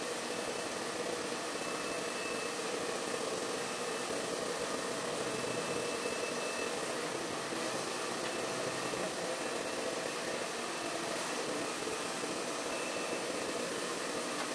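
Handheld hair dryer blowing steadily as it dries a dog's fur.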